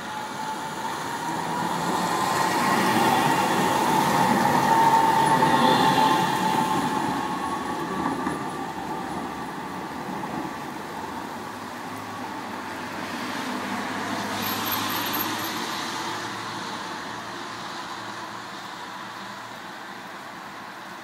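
Alstom Citadis low-floor tram passing: its electric traction drive whines steadily near one pitch, shifting slightly, over the rumble of steel wheels on rails. It grows louder to a peak about five seconds in, then fades as it moves away, with a second, smaller swell of noise about fourteen seconds in.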